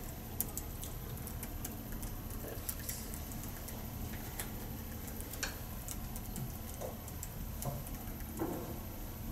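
Meeting-room ambience in a pause between speakers: a steady low hum with scattered faint clicks and small handling sounds from people at the table.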